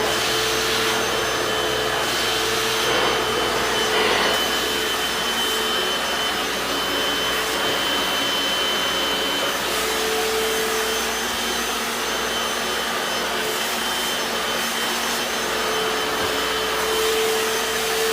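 Hoover FloorMate Deluxe hard floor cleaner running steadily in wash mode, its suction motor whining as it is pushed over tile.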